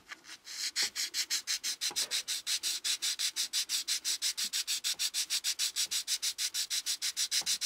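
180-grit sandpaper on a flat backing block rasping against a plastic model car grille, rubbed rapidly back and forth at about seven strokes a second. The bottom edge of the grille is being sanded down so it fits a shroud opening.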